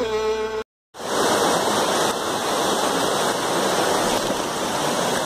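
Background music with a bowed-string melody cuts off about half a second in; after a brief gap, a steady rush of water pouring down a rocky stream cascade.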